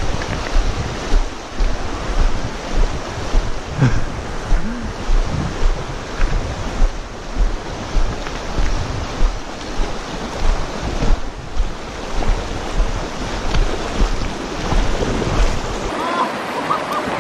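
Shallow river rapids rushing over stones, with wind buffeting the microphone in uneven gusts; the low wind rumble drops out near the end.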